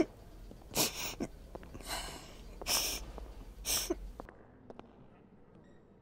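A woman sobbing: four gasping sobs about a second apart, some with a brief catch in the voice. The sound cuts off suddenly about four seconds in.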